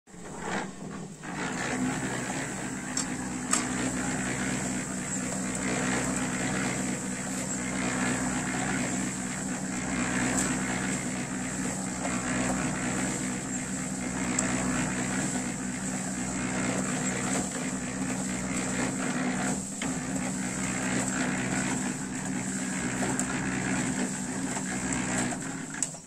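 Small tilting-drum concrete mixer running, its motor giving a steady low hum while the concrete mix churns in the turning drum. The sound cuts off just before the end.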